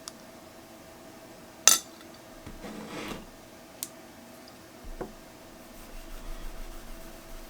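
Small hard objects clinking and tapping on a work surface while paint is rubbed into a metal speaker badge and the excess wiped off. One sharp clink comes about a second and a half in, followed by a short burst of rubbing, two lighter taps, and soft scuffing near the end.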